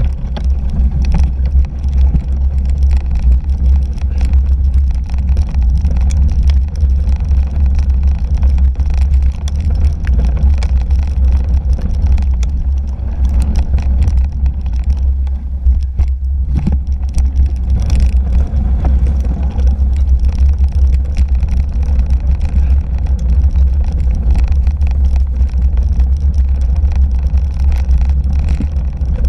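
A 2017 Fuji Jari 1.5 gravel bike rolling over a bumpy, muddy dirt trail, heard through a handlebar-mounted GoPro Hero 3. There is a steady low rumble with frequent clicks and knocks as the bike and camera are jolted.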